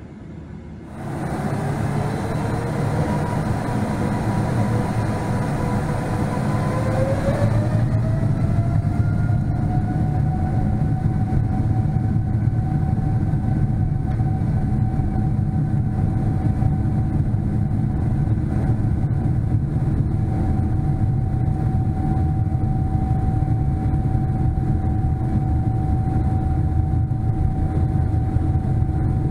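Boeing 777-300ER's GE90-115B engines spooling up to takeoff thrust, heard from inside the cabin: a whine climbs in pitch over the first several seconds, then holds steady over a heavy low rumble.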